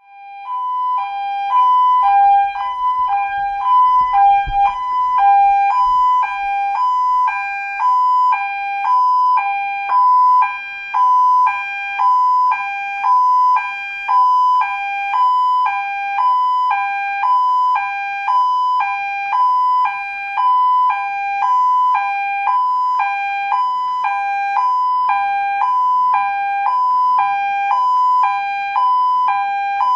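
Two-tone ambulance siren switching steadily between a high and a low note about every half second. It fades in over the first second.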